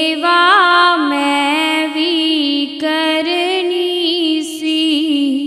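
A woman singing a Punjabi devotional shabad solo, drawing out long held notes with wavering ornaments on a single vowel.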